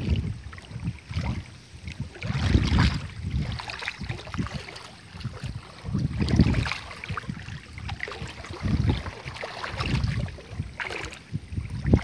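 Wind buffeting a phone microphone outdoors: low rumbling gusts that swell and fade every two to three seconds, with light crackling between them.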